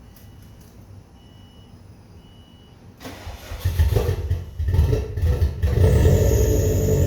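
Three short high beeps, then about three seconds in a car engine is cranked for its first start after a cylinder-head rebuild. It fires unevenly for a couple of seconds, catches about six seconds in and settles into steady running with a high whine over it.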